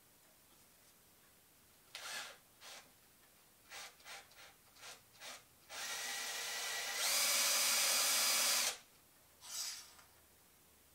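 Cordless drill turning a twist bit in an aluminium angle bracket: a few short bursts, then a steady run of about three seconds that gets louder and higher partway through, and one more short burst near the end.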